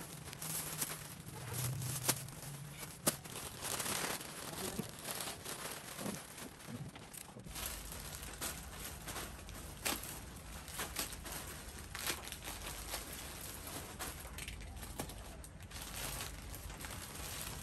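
Plastic mailer bags and plastic-wrapped clothes crinkling and rustling as they are handled and pulled apart, with many sharp crackles.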